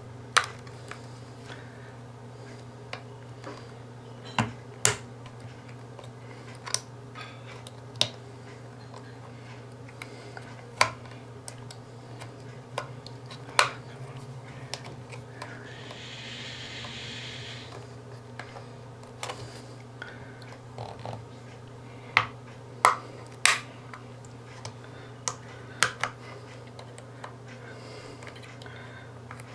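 Scattered sharp plastic clicks and taps as the case of a Sunvell T95k Pro Android TV box is pried open by hand and tool, working its clips loose. A soft hiss lasting about two seconds comes about sixteen seconds in, over a steady low hum.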